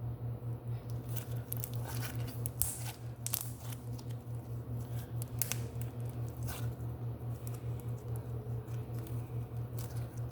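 Glue slime being squished and poked by hand, giving scattered wet clicks and crackles. A steady low hum, pulsing evenly several times a second, runs underneath.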